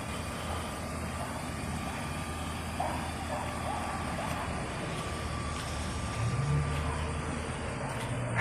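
Chevrolet Suburban's V8 engine idling, a steady low hum that grows a little stronger from about six seconds in.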